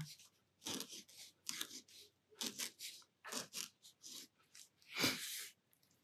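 Posca PC-1M white paint marker drawing short leaf strokes on watercolour paper: about a dozen soft, dry scratches of the fine tip, with a longer, louder rub about five seconds in.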